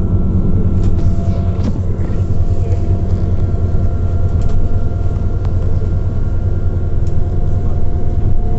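Inside a Scania Citywide 12LF CNG city bus under way: the steady low drone of its compressed-natural-gas engine mixed with road rumble. A faint thin steady whine sits above it, and a few light clicks and rattles come through.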